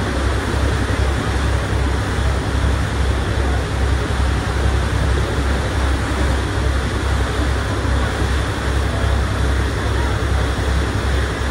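Passenger ferry under way: a steady low engine rumble with a constant rush of water.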